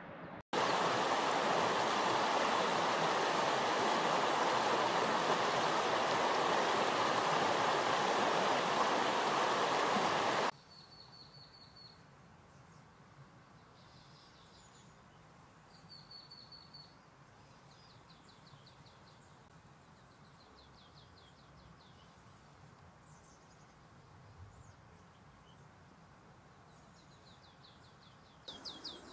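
Steady rushing of river water for about ten seconds, cutting off abruptly. Then a quiet background with small birds calling: short high notes and quick trills, repeated several times.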